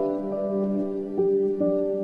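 Gentle instrumental background music: a calm, new-age style tune of held notes that change every half second or so.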